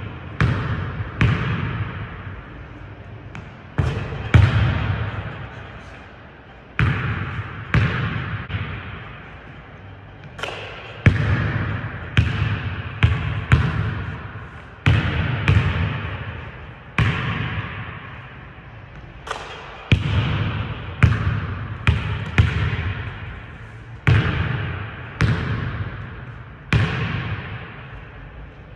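A basketball bouncing on a hardwood gym floor, a few bounces at a time with pauses between, each bounce echoing in the large hall.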